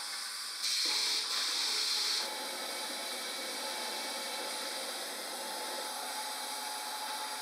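Automated bottling and capping machinery running with a steady whir, with a faint steady tone in it. A louder hiss comes in about a second in and stops after roughly a second and a half.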